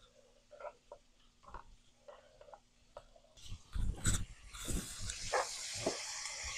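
Sliced onions and bell peppers in a frying pan begin to sizzle with a steady hiss, with a few knocks of a wooden spoon stirring them. The first few seconds are quiet, and the knocks and sizzle start a little past halfway.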